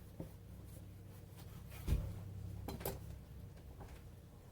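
Faint kitchen handling sounds over a steady low hum: a few soft knocks and some rubbing, with the clearest knock about two seconds in.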